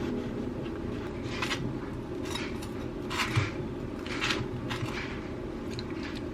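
Household handling noises: a string of short, irregular scrapes and clatters over a steady low hum.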